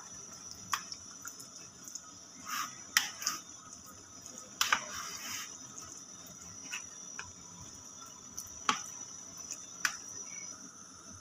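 A spoon stirring chunks of beef in a thick yogurt marinade in a plastic bowl: irregular wet squelches and scattered clicks of the spoon against the bowl.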